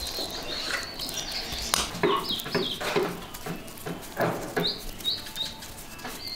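Bird chirping in short, high, repeated notes, in groups of two or three, over soft clicks and scrapes of a metal spoon working filling in an enamel bowl.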